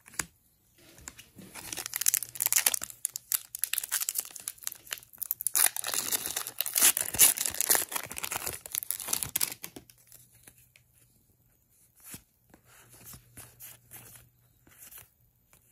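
A foil Magic: The Gathering collector booster pack wrapper being torn open and crinkled for several seconds, loudest in two stretches. After that come quieter clicks and rustles as the cards are handled.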